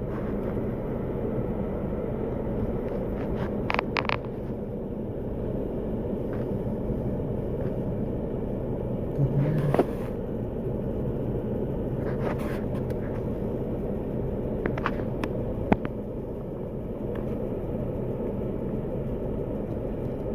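Steady low rumble with a few scattered clicks and knocks; a short louder knock comes about ten seconds in.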